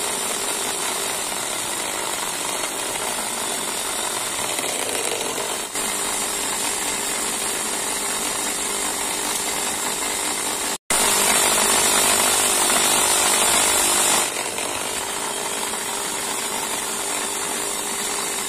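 Bench drill press running and drilling holes in small metal chassis parts, a steady motor hum under the cutting noise. It breaks off briefly about eleven seconds in, then runs louder for about three seconds.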